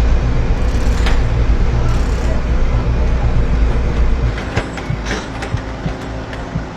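Large truck's engine running at low speed with a heavy, steady rumble that drops in level about four seconds in, followed by a few scattered clicks and knocks.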